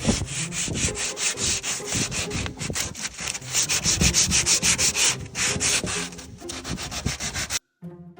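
Sandpaper rubbed by hand on the wooden motor box in quick back-and-forth strokes, about four to five a second, stopping abruptly near the end.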